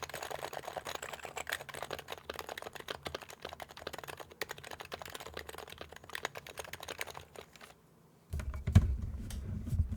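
Typing on a Happy Hacking Keyboard with silenced Topre switches in an H2H CNC aluminium case: a fast, continuous run of keystrokes that stops about seven and a half seconds in. After a short pause, a louder low rumble with a knock fills the last two seconds.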